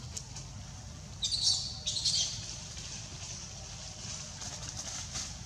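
A young macaque squeals twice, high and shrill, about a second apart while it play-fights with another young monkey.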